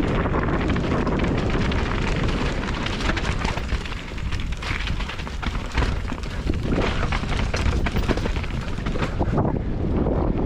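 Wind buffeting the microphone and a mountain bike rattling as it rolls fast over rough trail, with frequent clatters and knocks from the bumps.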